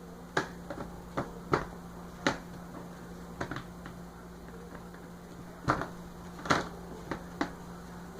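Hard plastic toy pieces of a Play-Doh playset being handled and fitted together: about ten irregular clicks and knocks, a few louder ones, over a steady low hum.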